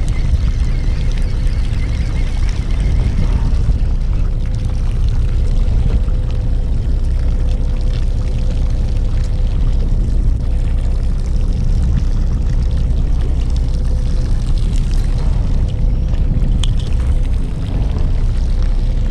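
Fishing boat's engine running steadily: a low rumble with a constant hum.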